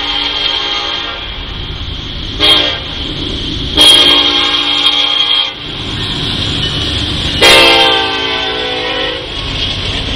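Union Pacific freight locomotive's air horn sounding for a grade crossing: a long blast that ends about two seconds in, a short blast, then two more long blasts. A low rumble from the passing train runs under it.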